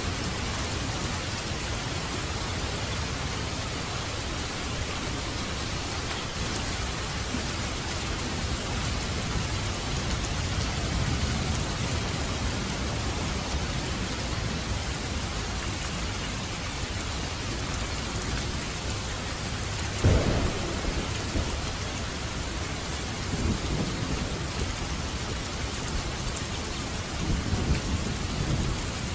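Steady heavy rain falling, with thunder: a sharp thunderclap about two-thirds of the way through, followed by lower rumbles a few seconds later.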